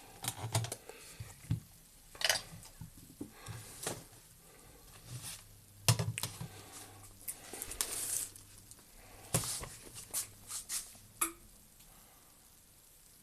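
Irregular clicks, taps and rustles of small objects being handled, stopping about 11 seconds in.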